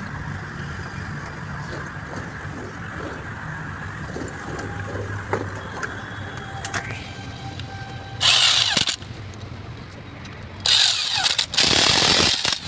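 Electric impact wrench hammering on the bolts of a truck differential's crown wheel carrier, in three bursts: a short one about eight seconds in, then two longer ones close together near the end.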